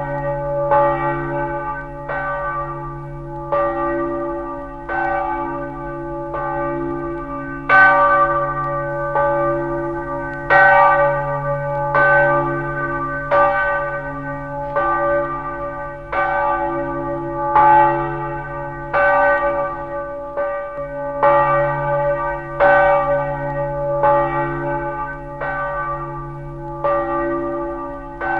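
Church bells pealing: a steady series of strikes, roughly one a second, each ringing on over a lingering low hum.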